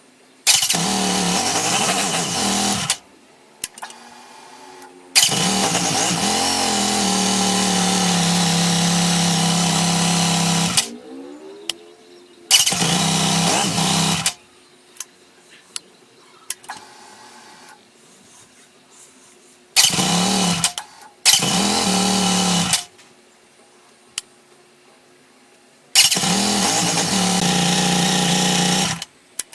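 Yamaha XT1200Z Super Ténéré's parallel-twin engine starting, running for a second or a few seconds, and being shut off, six times over. It catches promptly each time, with no sign of the hard starting that was being tested for.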